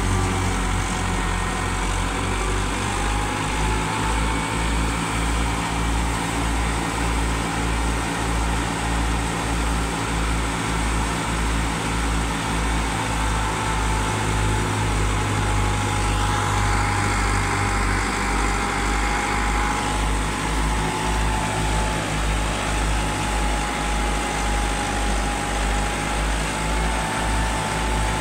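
Massey Ferguson 385 tractor's diesel engine running steadily under load, driving a grain thresher, with the thresher whirring over the engine's low, even pulse and a steady high whine above it.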